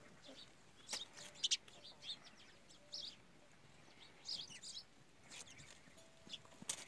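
Faint, scattered bird chirps, with a few short sharp clicks.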